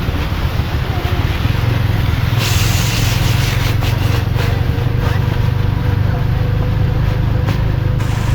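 Rain and vehicle traffic on a wet street: a steady low engine hum under an even hiss of rain, with a brief louder rush of hiss about two and a half seconds in.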